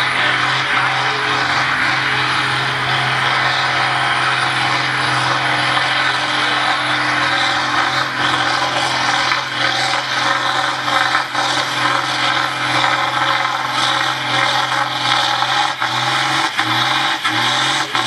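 Farm tractor's diesel engine running hard under full load while dragging a weight-transfer sled through mud at a tractor pull. Near the end the engine speed surges up and down in quick repeated pulses.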